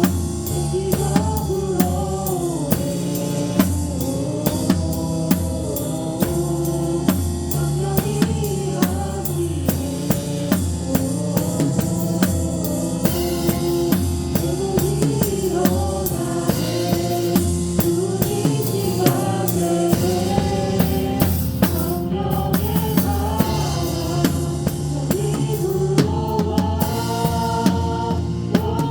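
A drum kit played live with a worship band: steady kick drum and snare strikes keep time under a flowing melody and bass line.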